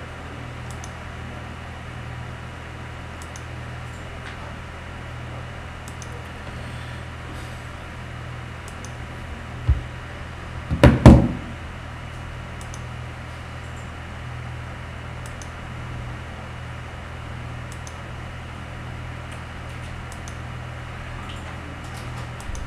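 Steady low hum of a small room, with faint scattered clicks. About ten seconds in there is a short knock, and a second later a louder cluster of thumps.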